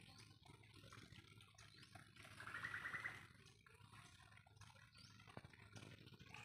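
Quiet outdoor ambience with a faint low hum and a few faint ticks. A brief high trilling call sounds about two seconds in and lasts about a second.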